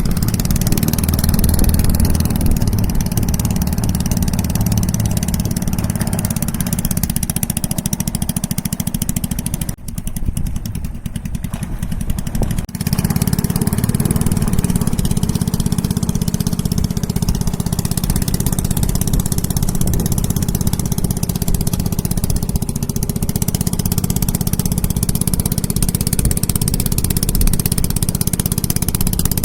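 Small boat engine running steadily under way. It eases off briefly about ten seconds in, then comes back up to speed about three seconds later.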